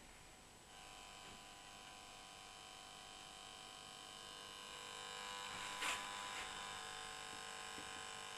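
Faulty LED floodlight's driver electronics buzzing with a steady, high-pitched electrical hum that starts about a second in and grows a little louder, with a short knock near the middle. The buzz is the sign of a fault in the light, which also gets warm and loses brightness.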